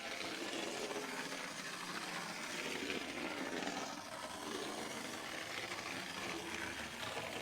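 Faint, steady whirr of the Hornby clockwork Percy's wind-up spring motor as the toy engine runs along the track, its spring partly unwound.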